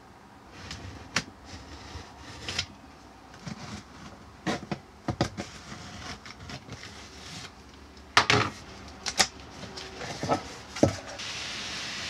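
A cardboard shipping box being cut open and unpacked: scattered scrapes, clicks and knocks of cardboard being handled, several of them sharp. A steady rustling hiss begins near the end.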